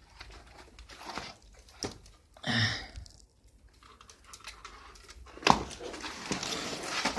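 Rustling and handling noises with scattered clicks, and a sharper knock about five and a half seconds in followed by more rustling.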